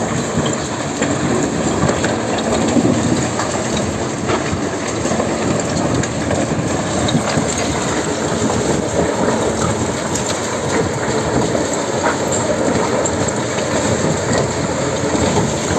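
Microtunnelling machine's cutter head grinding against rock at its breakthrough: a steady, rough rumble with many small cracks and clicks of breaking stone.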